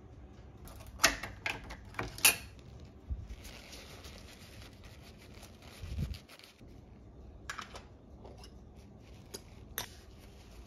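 Small sharp clicks and clinks of stainless steel shaker lids and glass spice jars being handled, with a stretch of paper-towel rustling as the lids are wiped dry.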